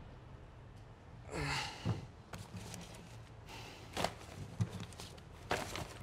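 A man's breathy sigh about a second and a half in, then scattered light knocks and rustles as a backpack and school things are handled on a desk.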